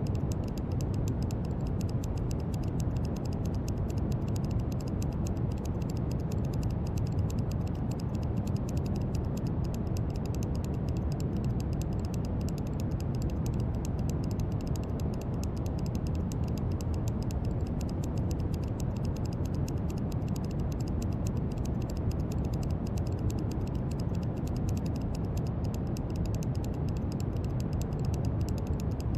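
Steady brown noise: a continuous, even rumbling hiss weighted toward the low end, with a faint fine crackle in the treble.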